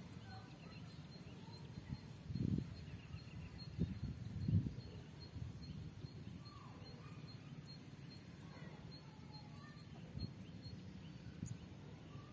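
Outdoor field ambience: a low wind rumble on the microphone with two stronger gusts a few seconds in, and faint scattered bird chirps. A faint high chirp repeats about three times a second throughout.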